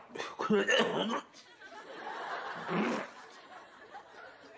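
A man retching and gagging in short voiced bursts, with laughter around him.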